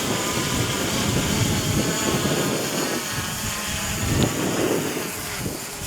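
DJI Mavic Pro quadcopter's propellers whining steadily as it climbs, with gusty wind buffeting the microphone underneath.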